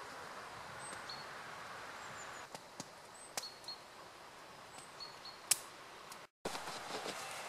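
Woodland ambience: a small bird calling over and over with short high chirps above a steady hiss, with a few sharp snaps. The sound drops out for a moment near the end and comes back with a different background.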